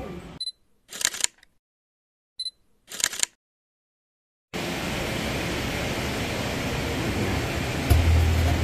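Two digital camera shots over dead silence, about two seconds apart, each a short high focus beep followed by a shutter click. About four and a half seconds in, a steady hiss of background noise begins, with music coming in near the end.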